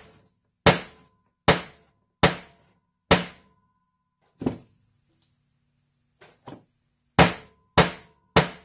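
Claw hammer striking a small bent metal eyelet, the retainer of an air compressor's check valve, flat against a wooden bench top. Evenly spaced blows with a short ring after each, a pause with two light taps, then quicker blows near the end.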